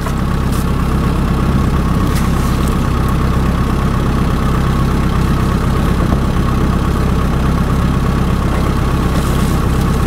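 Boat engine running steadily at idle, a low, even hum.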